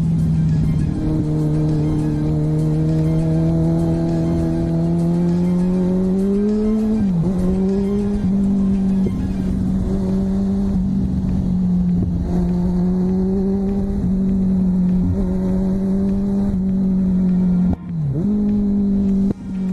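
Kawasaki Z1000's inline-four engine pulling steadily under way, its pitch climbing slowly, with wind rushing past. Twice, about seven seconds in and again near the end, the engine note drops sharply as the throttle is closed and then picks back up.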